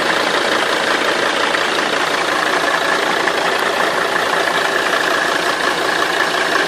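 Mercedes-Benz 270 CDI five-cylinder common-rail diesel running steadily at idle with a continuous rattle of unknown origin.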